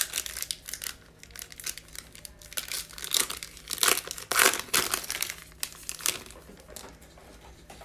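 Foil wrapper of a 2020 Bowman Chrome baseball card pack being torn open and crinkled by hand: a run of irregular crackles and rustles, loudest about halfway through.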